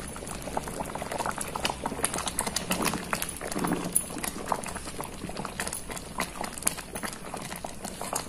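Grated mango in sugar syrup bubbling at a simmer in a pot while a wooden spatula stirs it, giving a steady run of small pops and clicks.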